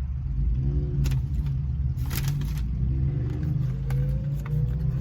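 Cars going by, heard from inside a parked car: a steady low engine rumble, with a rising engine note in the second half as a car pulls away. A few light clicks are also heard.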